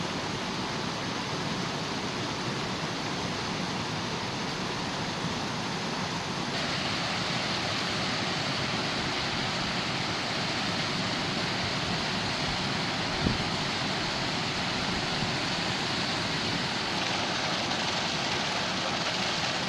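River water pouring over a weir and rushing through the mill race beside it: a steady, even rush of falling water that grows a little louder about six seconds in. There is a single short knock about thirteen seconds in.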